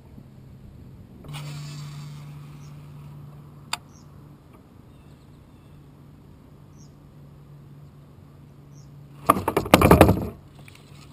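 A burst of loud clattering knocks lasting about a second near the end, from a baitcasting rod and reel being handled in a plastic fishing kayak. Under it runs a steady low hum with a few faint high chirps.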